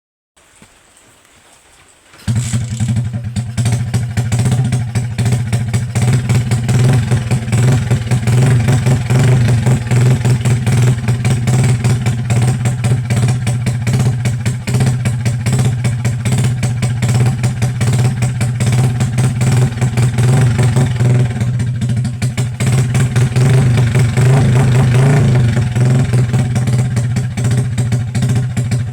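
Truck engine running loudly through its exhaust, a steady deep drone with rapid firing pulses that comes in abruptly about two seconds in.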